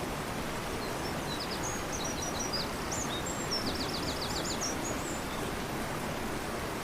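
Steady rushing of a fast-flowing river. A small bird calls faintly over it from about a second in to about five seconds in, with scattered high chirps and then a quick series of about seven short notes.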